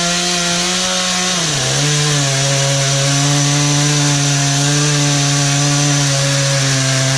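Gas chainsaw running hard while cutting through a wooden picnic table; the engine speed drops about a second and a half in and holds steady at the lower pitch.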